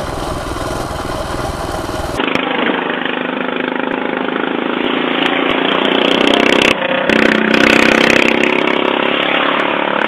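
Coleman CT200U minibike's small single-cylinder engine running as it is ridden, with wind buffeting the microphone. About two seconds in, this cuts to a duller, narrower recording of an engine running steadily, heard from inside a car, with a short break near the seven-second mark.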